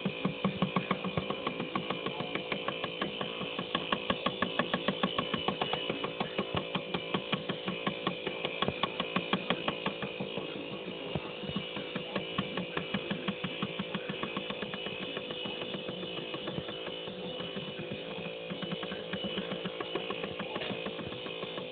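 Automatic fish feeder's small motor turning its empty food drum on a dry run: a steady whine with a fast, even clicking of several clicks a second.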